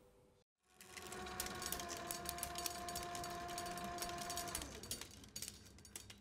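Reel of film turning on a motorised film table: a steady motor hum with rapid clicking and chattering. Near the end the hum drops in pitch and dies away as the reel slows, leaving scattered clicks.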